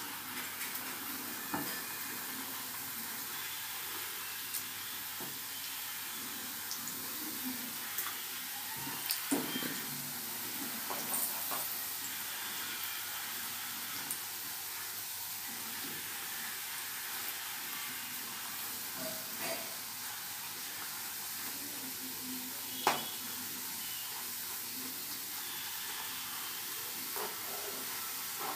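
Squares of maida dough (shakkar pare) deep-frying in hot oil in a kadhai, with a steady sizzle. Occasional light clicks and taps come as they are stirred with a wooden spatula, the sharpest about three-quarters of the way through.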